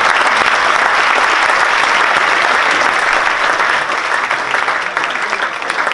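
Audience applauding, loud and steady, easing off a little near the end.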